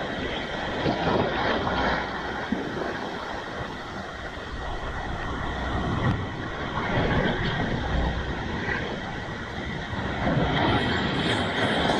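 Sea waves breaking and washing over a rocky shore: a steady rushing wash that swells louder about a second in, again around six to seven seconds, and from about ten and a half seconds on.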